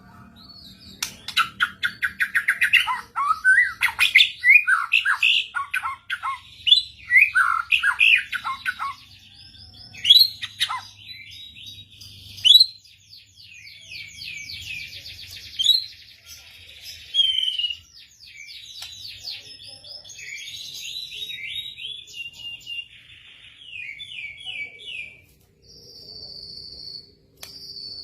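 Murai songbird singing a rich, varied song of rapid whistles, trills and chirps, loudest and densest in the first dozen seconds, then softer repeated phrases. A steady high buzz, like an insect, comes in near the end.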